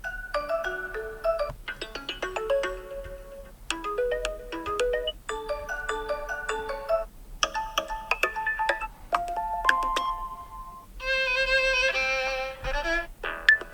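TCL 30 SE smartphone ringtones previewed one after another: about seven short melodic tones, each cut off after a second or two as the next one starts.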